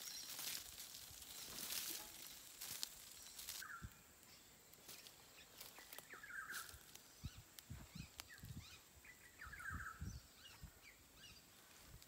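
Quiet outdoor ambience: rustling of damp cloth being handled and hung on a line, with soft low thumps in the second half and three short chirping bird calls.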